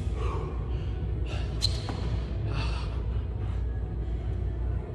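Background music with a person breathing hard and the soft thumps of burpees as he drops to the floor and jumps, including one sharp knock a little under two seconds in.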